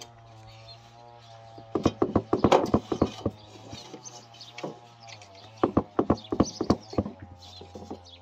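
Quick runs of sharp knocks of a knife against a wooden board as a rolled dough log is sliced, in two bursts, one about two seconds in and one near six seconds, over a steady low hum.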